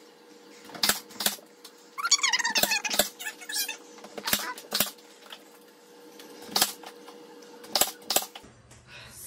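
Nail gun firing into wall trim: about ten sharp snaps, mostly in pairs, a pair every one and a half to two seconds.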